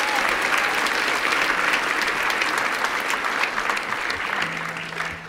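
Concert audience applauding, the clapping dying away near the end.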